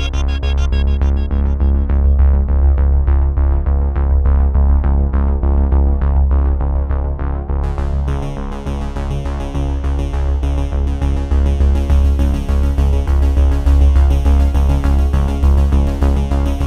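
Electronic synthesizer music: a deep sustained bass under held chords, with a quick repeating note pattern. A brighter, hissy high layer comes in about halfway through.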